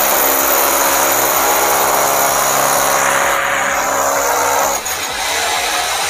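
Electric hand drill boring a hole into a masonry wall, running steadily and easing off briefly about five seconds in.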